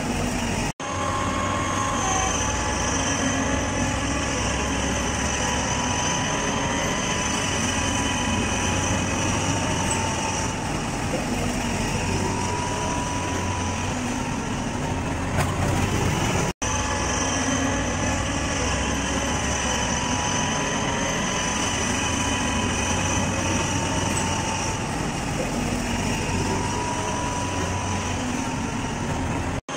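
A rail vehicle running steadily: a continuous rumble with a thin, steady high whine over it, broken by brief abrupt cuts about a second in and just past halfway.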